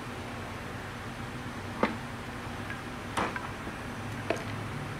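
Three sharp clicks of metal parts being handled and fitted into place, spread about a second apart, over a steady low hum.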